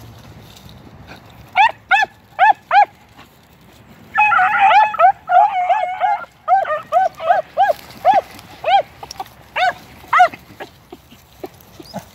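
Two beagles giving tongue on a rabbit's scent line in short, pitched barks: a few single barks about a second and a half in, a couple of seconds of both dogs barking over each other, then more spaced barks that die away near the end.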